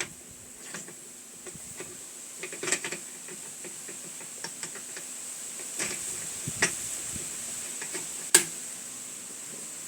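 Scattered light metal clicks and clinks as transfer-case parts such as washers and a bearing are handled and set in place, with one sharp click about eight seconds in. A steady faint high hiss runs underneath.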